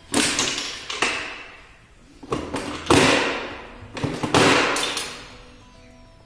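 Neale's ball token instrument, a railway single-line signalling machine, worked by hand: five or six loud metal clanks as its slides and drawer are moved, each ringing on briefly in the steel case.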